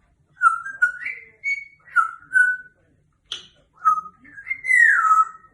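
African grey parrot whistling a tune: a run of short whistled notes, some gliding up or down, ending in a longer falling whistle. A brief sharp noise comes about a third of the way in.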